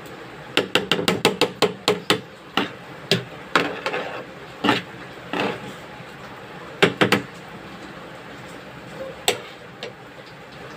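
Kitchen utensils knocking: a quick run of sharp taps, about five a second, then scattered single knocks, with three close together a little past the middle.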